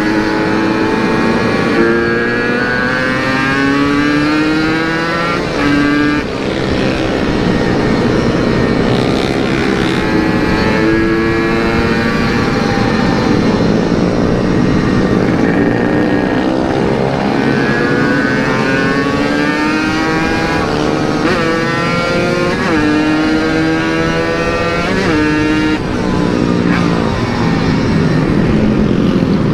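Yamaha RX-King 135 cc two-stroke single-cylinder engine breathing through a CRC Series aftermarket exhaust, accelerating hard on the move. Its pitch climbs, then drops sharply at each gear change, several times over.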